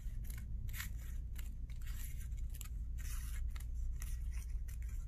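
Scissors snipping lengthwise through a red crepe-paper streamer, a steady run of short cuts several times a second.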